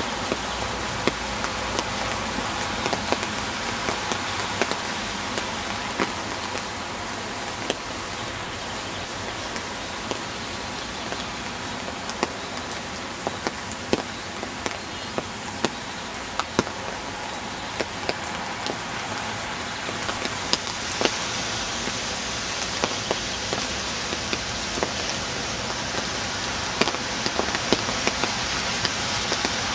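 Steady rain falling, with many single drops ticking sharply close to the microphone.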